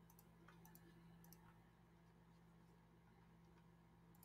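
Near silence with a few faint computer mouse clicks: several in the first second and a half and one more near the end.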